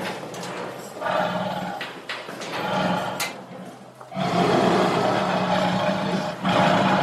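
Tiger growling and roaring in rough, loud bouts, with a long sustained roar starting about four seconds in.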